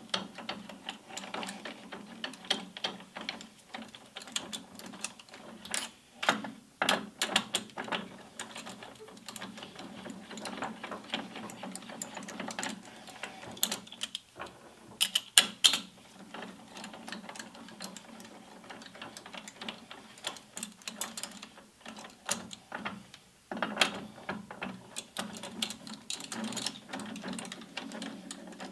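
A four-jaw lathe chuck's jaw screws are being spun quickly with a hand-cranked speed handle. The screws and sliding jaws make continuous irregular metallic clicking and rattling, with a few louder metal clicks.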